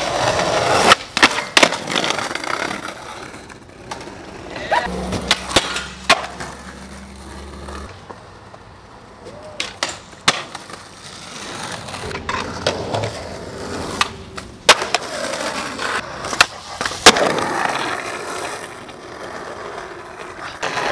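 Skateboard wheels rolling over concrete and pavement, with repeated sharp clacks of the board popping and landing.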